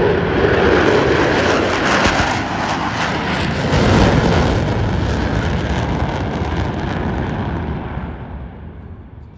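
Jet noise from Blue Angels F/A-18 Super Hornets flying a demonstration pass, a loud rushing roar that fades away over the last couple of seconds as the jets fly off.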